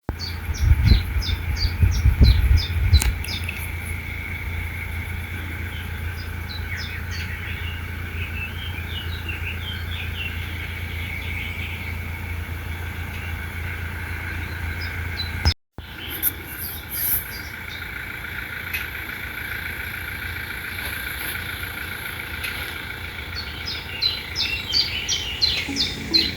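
Small birds chirping and calling repeatedly, over a steady low outdoor rumble, with heavy low thumps of wind on the microphone in the first three seconds. The birdsong thickens near the end.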